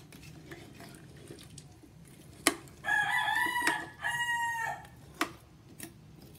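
Metal ladle stirring beef and potatoes in a pot, knocking sharply against it twice. About three seconds in, a long high crowing call in two parts, like a rooster's crow, sounds over it.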